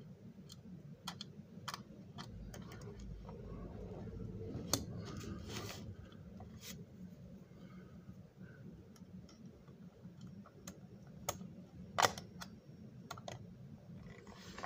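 Scattered small clicks and scrapes of a screwdriver driving screws into the plastic body of a model train, with a sharper click about twelve seconds in, over a steady low hum.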